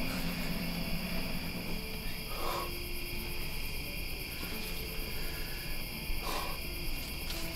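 Night insects chirring steadily at a high pitch, with low held tones shifting pitch underneath and two brief soft rustles about two and a half and six seconds in.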